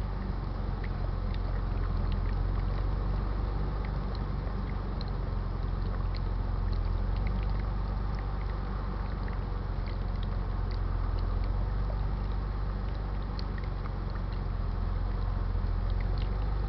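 A steady low mechanical hum with faint, scattered small ticks over it.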